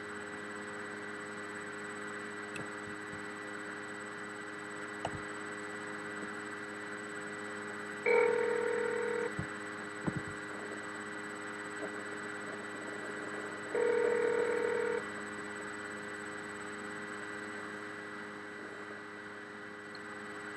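Phone line on speakerphone ringing through while a call is transferred: a steady line hum with two ringback tones, each about a second long and about six seconds apart, plus a few faint clicks.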